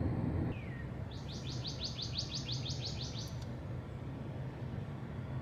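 A songbird singing a quick run of about a dozen high, falling notes lasting a little over two seconds, over a steady low background rumble.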